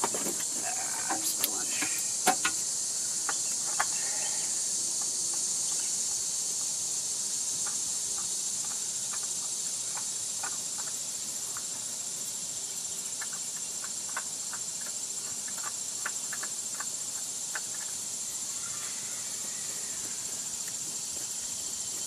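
Scattered small clicks and scrapes from a gloved hand working an oil filter back onto the engine up inside a wheel well, over a steady high-pitched hiss.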